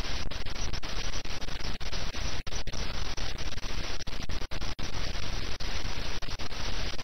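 Steady static-like hiss, broken by many brief dropouts; no clear voice or music stands out.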